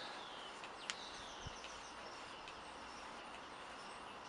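Faint background birdsong: repeated short high chirps that slide down in pitch, with a single sharp click about a second in.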